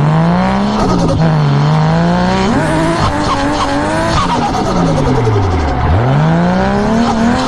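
A car drifting, its engine revving up and down as the throttle is worked, with tyres squealing as they slide. The revs drop sharply about six seconds in, then climb back.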